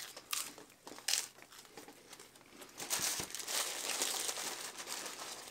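Paper taco wrappers crinkling as they are handled and unwrapped. There are a few sharp crackles at first, then steady, dense crinkling from about three seconds in.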